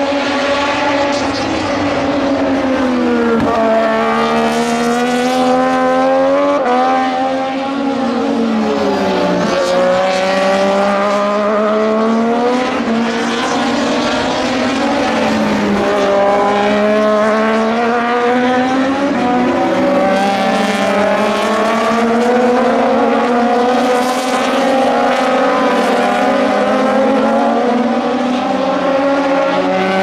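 Several Moto2 race bikes with Triumph 765 cc three-cylinder engines running hard through a corner, overlapping one another. Each engine's pitch climbs and then drops sharply at gear changes or off the throttle, over and over, with no gap in the engine noise.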